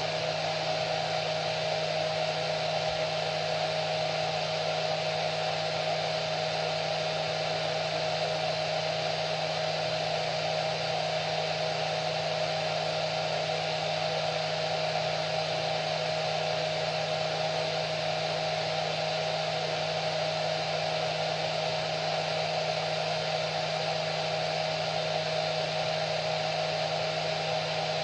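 Hair dryer running steadily, a constant rush of air with a steady motor whine.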